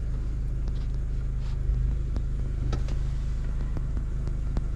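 Norwood LumberPro HD36V2 portable band sawmill running steadily as its band blade cuts through a pine log, with a few light clicks over the engine's even hum.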